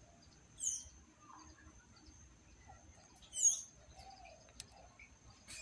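A bird chirping twice, two short high calls about three seconds apart, over a faint steady high-pitched tone.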